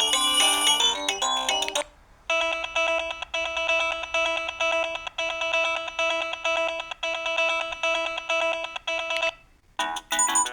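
Samsung SGH-E330N mobile phone's built-in ringtone and alert melodies, played one after another. One tune cuts off about two seconds in, a repeating pattern of tones plays for about seven seconds, and a new tune starts near the end.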